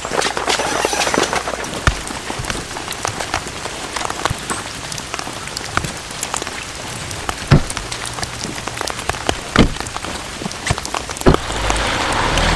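Steady rain falling, with many small drop ticks and a few louder, sharper drop hits close by. A low rumble comes in near the end.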